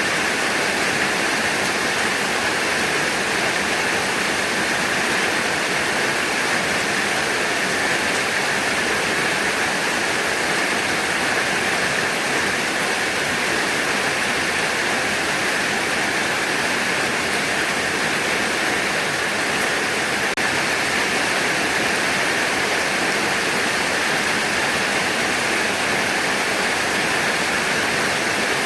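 Heavy rain falling steadily, an even hiss of water with no breaks.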